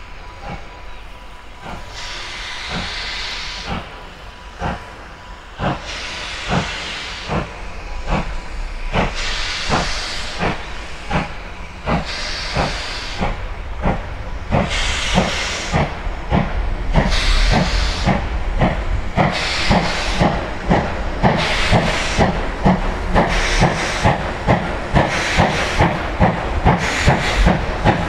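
SJ B 1323, a 4-6-0 steam locomotive, starting a train from a standstill. Its exhaust chuffs quicken from about one a second to two or three a second near the end, with steam hissing from the cylinders.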